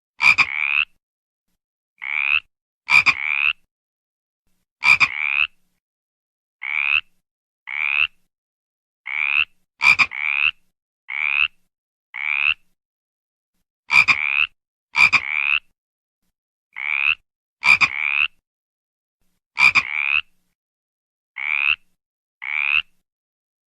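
A frog croaking: short calls that rise in pitch, coming singly or in close pairs every second or two with silence between. Some begin with a sharp click.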